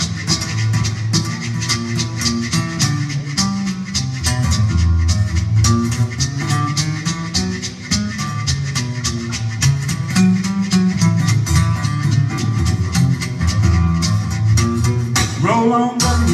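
Solo acoustic guitar played live, fingerstyle, with a fast run of evenly spaced, percussive strikes carrying a bass line and melody together.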